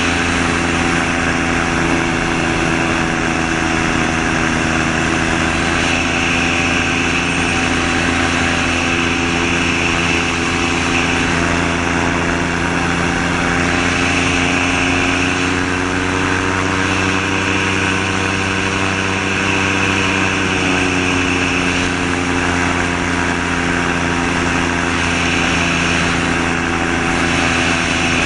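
Gyrocopter's Subaru EA-81 flat-four engine driving a Warp Drive propeller through an NSI gearbox, running steadily in cruise flight. Its note rises slightly about halfway through and eases back a few seconds later, with a constant rush of wind over the open cockpit.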